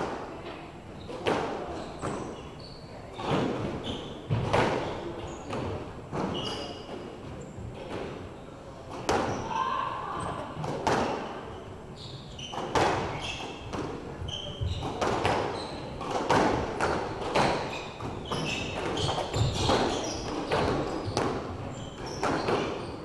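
Squash rally: the ball's repeated sharp thuds off racquets and the court walls at an irregular pace, each echoing in the enclosed court, with short high squeaks in between.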